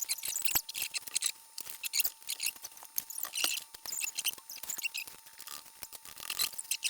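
Small plastic building-block pieces clicking, clattering and scraping as they are picked through and handled, in quick irregular ticks.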